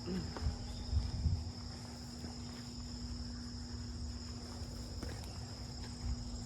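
Steady, high-pitched chorus of insects such as crickets, with a constant low hum under it and a few soft low thumps in the first second and a half.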